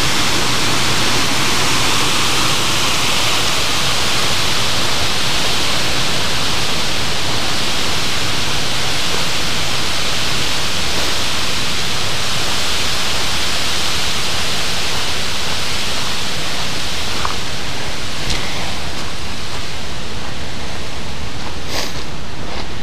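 River water pouring over a stone weir: a steady, loud rushing of falling water.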